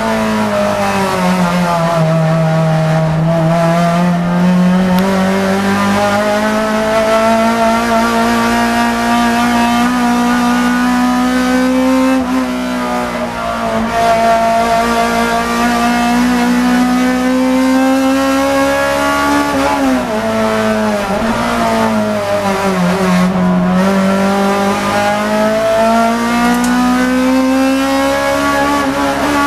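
Racing car's engine heard from inside the cabin at full effort, its note climbing slowly as the car pulls, dipping briefly about twelve seconds in and dropping sharply about twenty seconds in before climbing again.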